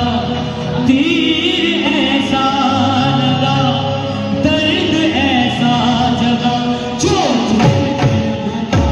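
Live qawwali: male voices sing the melody over long held accompanying notes, and drum strokes with sliding low tones come in near the end.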